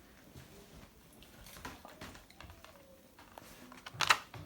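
Dog eating a ham treat: quiet mouth and chewing sounds with faint clicks, and one short, sharp, louder sound about four seconds in.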